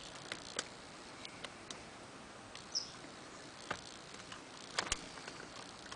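Lock pick and tension wrench working the pins of a four-pin ABLE padlock. Scattered small metal clicks and ticks, the loudest a quick pair near five seconds in, with a brief high squeak near the middle.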